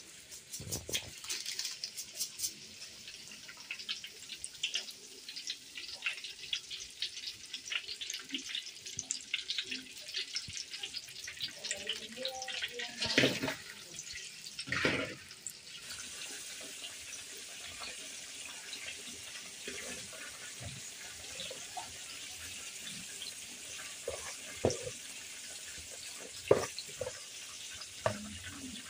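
Water running and splashing, as from a tap. The first half has many small splashes and clatters, with a couple of louder splashes near the middle. From about halfway the sound settles into a steady stream of running water.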